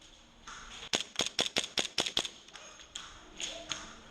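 Airsoft gun firing a quick burst of about ten sharp snapping shots, about eight a second, followed by a single shot a little later.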